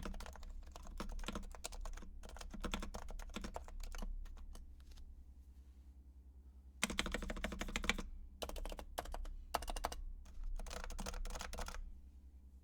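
Realforce R4 keyboard with silent 45g Topre switches being typed on in quick bursts, with a pause of about two seconds midway: muted key presses, unmodified and straight out of the box.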